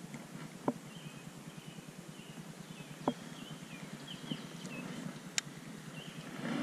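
Steady rattling whir of a baitcasting reel being cranked in during a retrieve, with a few sharp clicks and faint bird chirps in the middle.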